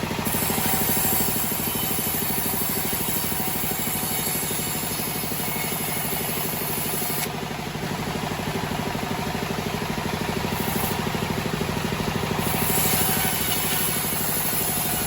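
Homemade band sawmill running steadily while sawing a teak log, its motor droning with a constant low hum. A high hiss drops out about seven seconds in and comes back near the end.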